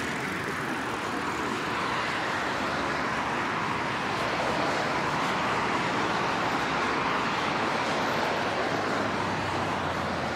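Steady road traffic noise from cars on a multi-lane city road.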